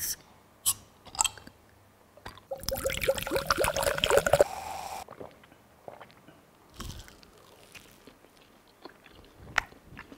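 Glass bottles of an orange drink opened with a few sharp clicks, then the drink poured splashing into glasses for about two seconds, its pitch rising as they fill. After that, quiet crunching and chewing of fried food.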